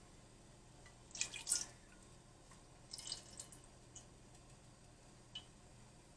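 Vegetable oil poured from a bottle into a pot: a few short, soft liquid drips and splashes spread over several seconds.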